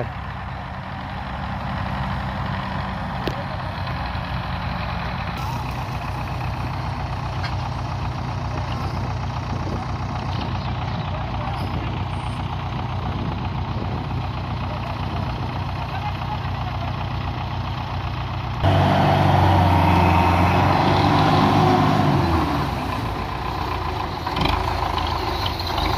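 Belarus tractor diesel engines running steadily under load while pulling a heavily loaded sugarcane trolley through soft ground. About 19 seconds in, a louder, harder-working engine sound comes in abruptly and eases off a few seconds later.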